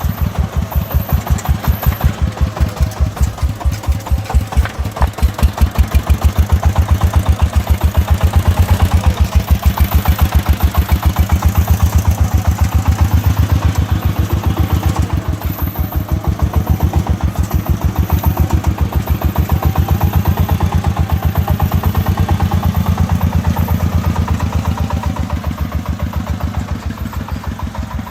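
Công nông three-wheeler's single-cylinder diesel engine chugging in fast, even thuds, working harder and louder for a stretch in the middle before easing off.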